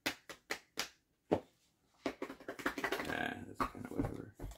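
A person making beatbox-style mouth percussion: a string of irregular sharp pops and clicks, a denser buzzing stretch in the middle, then more pops.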